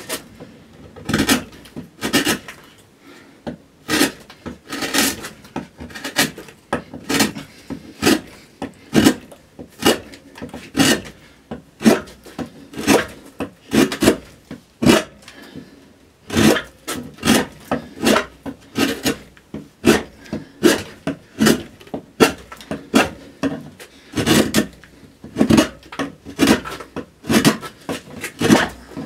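Gouge cutting into a spruce cello top, one short cut after another at roughly one or two a second, while the arching is roughed out.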